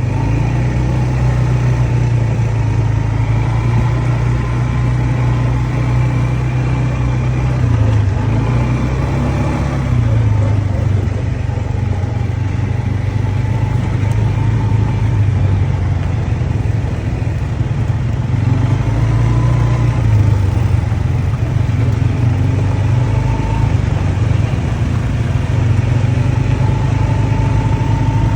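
ATV engine running steadily. Its pitch shifts briefly about eight to ten seconds in and again around twenty seconds in.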